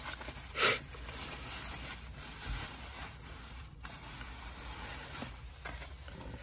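A plastic grocery bag and plastic-wrapped foam meat trays rustling and crinkling as they are handled, with one brief louder rustle under a second in.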